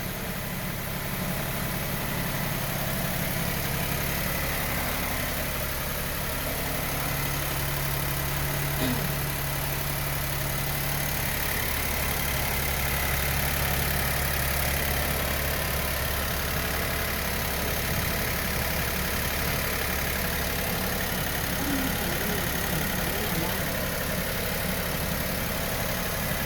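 Suzuki S-Presso's three-cylinder engine idling steadily, warming up after a cold start with the aircon still off.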